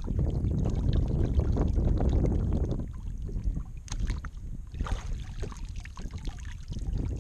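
Wind buffeting the microphone over shallow water for the first few seconds, then light water splashing and dripping as a redfish is handled in the water and lifted out.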